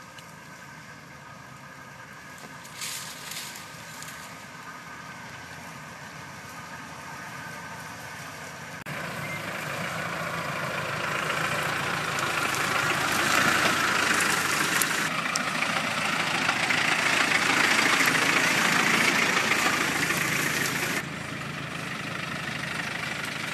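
Engines of off-road 4x4s running at low speed as they crawl past one after another through dense brush. The sound grows louder from about nine seconds in and drops suddenly near the end.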